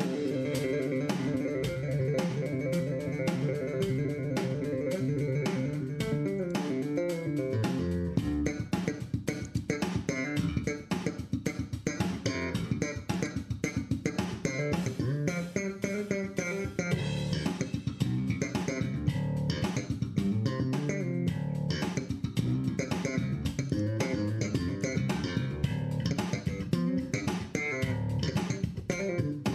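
Background music led by guitar and bass, with a steady beat.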